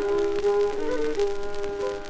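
Old-time fiddle playing a lively instrumental break between verses, from a 1925 78 rpm record, with faint surface crackle over the tune.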